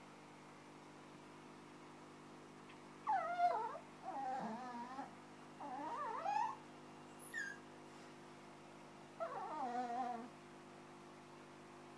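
Small teacup dog whining excitedly in high, wavering cries: four bouts of about a second each from about three seconds in, then a short squeak and a last whine near the end.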